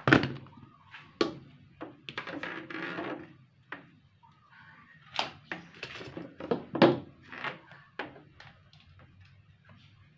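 Hard plastic knocks and clicks as the lid and motor unit of a GSF electric mini chopper are handled and fitted onto its bowl. The two loudest knocks come at the start and about seven seconds in, with lighter taps and a short rustle between.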